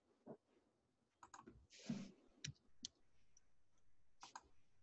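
Faint computer mouse and keyboard clicks, several short separate clicks spread over a few seconds with near silence between them.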